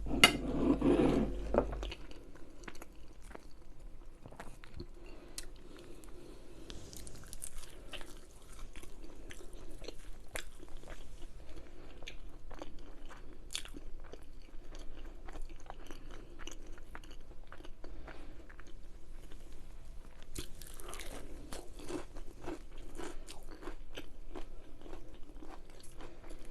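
Close-miked eating sounds: a person chewing and biting food, with frequent crunches and sharp mouth clicks.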